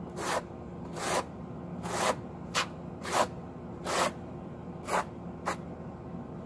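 Steel trowel scraping thin-set mortar onto a concrete block wall in eight short strokes, about one a second, working the mortar into the block.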